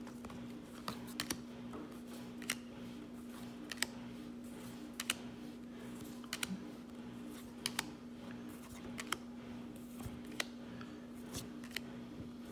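Trading cards being flipped through one at a time, each card sliding off the stack with a sharp click, about one every second and a bit, over a steady low electrical hum.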